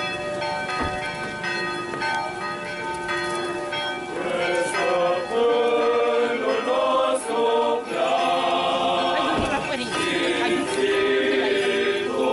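Church bells ringing, with a choir starting to sing a chant about four seconds in and carrying on over the bells.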